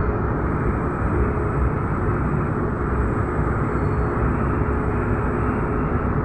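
Ship's engines running with a steady low rumble and a faint hum while it manoeuvres off the quay, heard from on deck.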